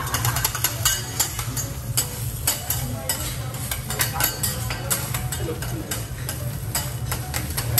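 Metal spatula and fork clicking and scraping quickly and irregularly against a teppanyaki steel griddle while an egg sizzles on the hot plate. A steady low hum lies underneath.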